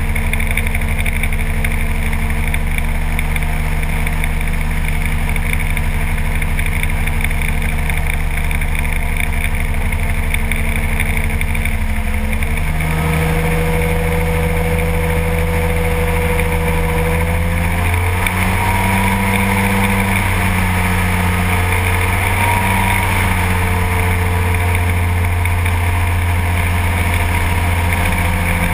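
Kolb ultralight aircraft's engine and propeller droning steadily in flight. The engine note shifts slightly about twelve seconds in and again around eighteen seconds, as with small throttle changes.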